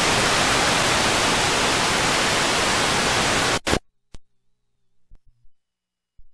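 Loud, even TV static hiss that cuts off sharply about three and a half seconds in. A few faint clicks follow in near silence.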